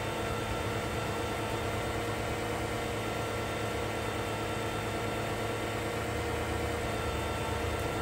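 2005 Chrysler 300's engine idling steadily.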